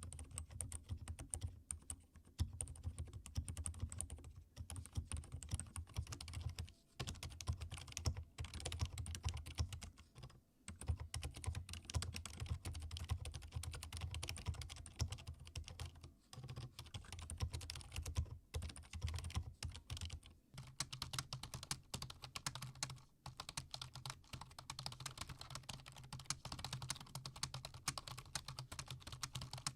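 Continuous typing on a mechanical keyboard fitted with Akko Fairy silent linear switches, then on the same iQUNIX A80 with Outemu Silent Gray switches from about seven seconds in, and on a typical office membrane keyboard near the end. The keystrokes are dense, with a short pause here and there.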